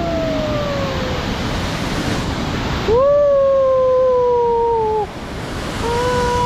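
Steady rush of the waterfall, overlaid by long drawn-out howling calls. Each call rises quickly, then holds and slowly sinks in pitch: two fade out in the first second, a loud one lasts about two seconds in the middle, and a short one comes near the end.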